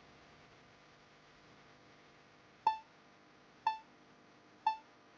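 Three short electronic beeps, about a second apart, over a faint steady hiss.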